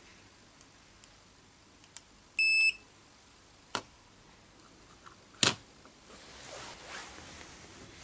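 A Z-06 wireless pager receiver gives one short, high electronic beep. A sharp click and then a louder knock follow, a couple of seconds apart.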